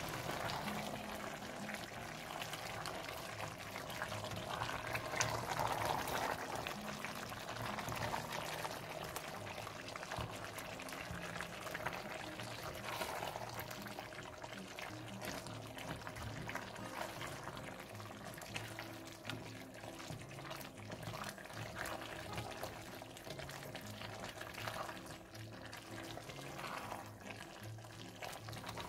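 A spoon stirring thick, simmering chicken curry with peanut butter in a stainless steel pot: continuous wet stirring and bubbling, with light clicks and scrapes of the spoon against the pot.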